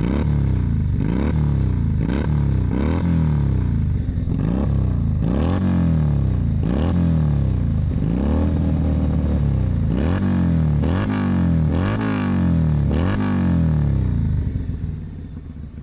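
Keeway SCR 250V motorcycle with a custom shortened, half-baffled exhaust, revved in quick throttle blips about once a second, each rising and then dropping back. Near the end it settles back to idle.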